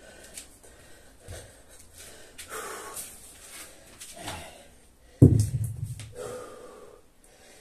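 Heavy breathing from exertion, then a loud heavy thud about five seconds in as a gym weight is put down on the rubber floor mat, its low boom fading over about a second.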